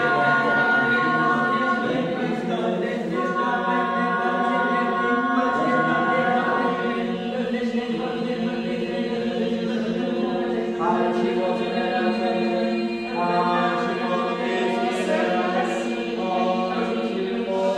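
A group of unaccompanied voices singing long held notes together, the pitches shifting every few seconds.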